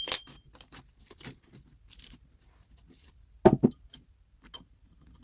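Slime being handled and pressed, giving soft sticky clicks and a louder cluster of wet pops about three and a half seconds in.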